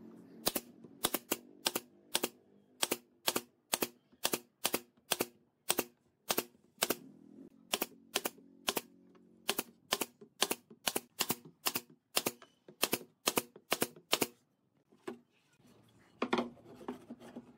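Pneumatic brad nailer driving brads into a pine slat frame: some thirty sharp shots in quick succession, about two a second, stopping about 14 seconds in. A single thud of wood on the bench near the end.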